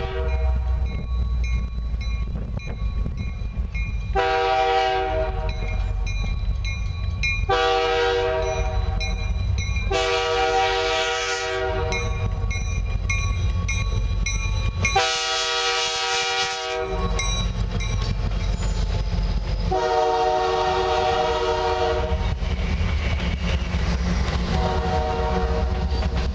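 A CN freight diesel locomotive's multi-chime air horn sounds about six long blasts a few seconds apart as the train approaches and passes. Under the horn is the steady rumble of the locomotives and the rail cars rolling by, with wheel clatter.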